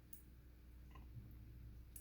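Near silence with a couple of faint, small metallic clicks from lock parts being handled: one just after the start, one near the end.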